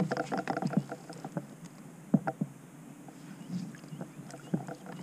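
Scattered knocks and clatter of fishing gear being handled aboard a plastic kayak as a landing net is picked up, busiest at the start, with one sharp knock about two seconds in.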